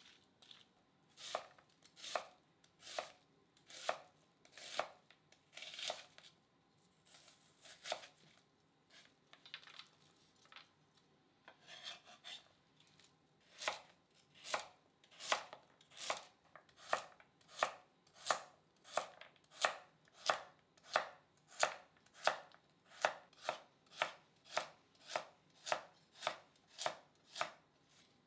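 Kitchen knife cutting vegetables on a cutting board, each stroke a sharp knock. At first the cuts come singly, about one a second. From about halfway there is a steady run of slicing cuts, speeding up to about two a second.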